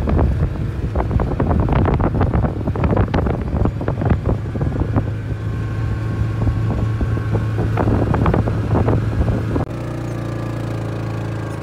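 A vehicle running with a steady low drone, overlaid with many irregular knocks and rattles. Near the end the rattling stops, leaving a smoother steady hum.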